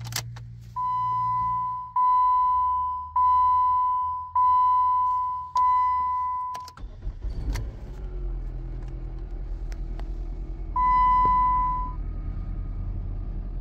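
A 2006 Chrysler PT Cruiser's dashboard warning chime sounds five times in a steady series. About seven seconds in, the 2.4-litre four-cylinder engine cranks, starts and settles into a low, steady idle, followed by one more chime. The engine starting on a newly programmed key shows the old key's transponder chip was the cause of the anti-theft no-crank.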